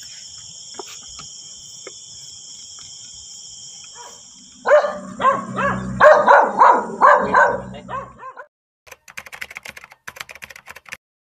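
Crickets chirring steadily, then a dog barking repeatedly and loudly for about three and a half seconds, starting a little over four seconds in. Faint rapid clicking follows near the end.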